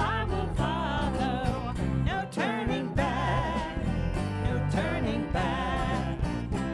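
Live worship band playing a song: a sung melody over electric bass, electric guitar and drum kit.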